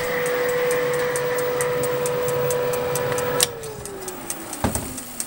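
Halogen oven's fan running with a steady hum. About three and a half seconds in it is switched off with a click, and the motor's whine falls in pitch as the fan spins down. A knock follows, and light regular ticks run underneath.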